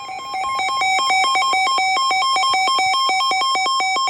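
Emergency alert tone for a flash flood warning: a loud electronic signal trilling rapidly back and forth between a lower and a higher pitch, several times a second. It steps up in loudness a moment in and cuts off suddenly near the end.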